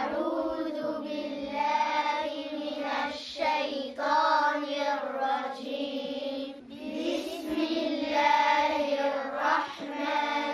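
A group of children chanting together in unison, in long drawn-out phrases broken by short pauses.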